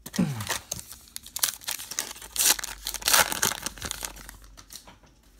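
A baseball card pack wrapper being torn open and crinkled as the cards are pulled out, a dense crackling that is loudest about two and a half to three seconds in and dies away near the end.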